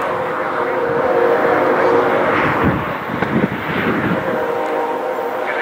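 Nathan K5HL five-chime air horn on an approaching CN freight locomotive, sounding a long held chord from a distance, fading a little past the middle.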